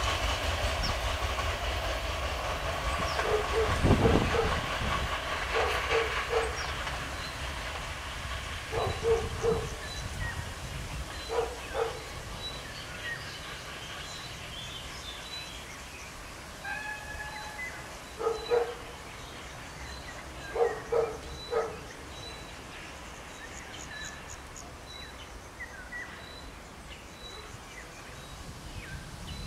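Former DB class 624 (VT624) diesel railcar pulling away, its running sound fading as it goes. The wheels click over the rail joints in pairs and triplets every few seconds, getting fainter.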